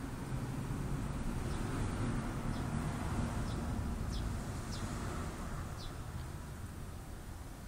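Birds chirping outdoors: short, high chirps that fall in pitch, about once a second, over a low steady rumble.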